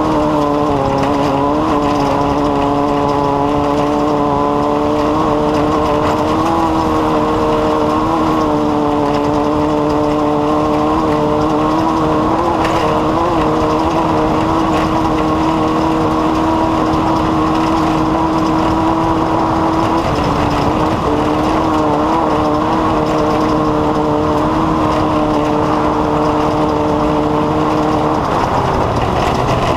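An engine running at a steady speed, with small wavers in pitch and a drop in pitch near the end.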